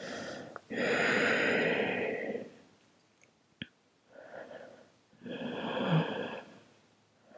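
A woman's slow, deep breathing, heard close up: two long breaths about four seconds apart, with fainter, shorter ones between them, and a single small click about halfway through.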